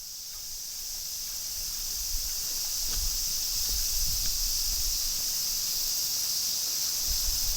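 Strong typhoon wind rustling the trees of a wood, over a steady high-pitched insect chorus, with low gusts buffeting the microphone from about three seconds in.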